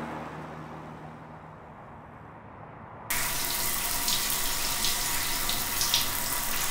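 Low, fading background sound, then about three seconds in a running shower cuts in suddenly: water spraying in a steady, even hiss.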